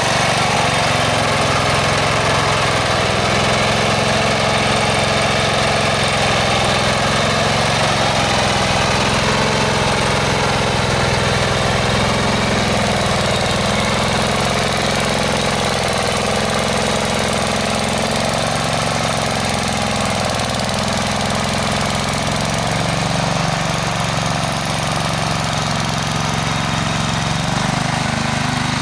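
Allis-Chalmers B12 garden tractor's 12 hp Briggs & Stratton engine running steadily under load as it pulls a cultivator through garden soil, its note wavering slightly with the load.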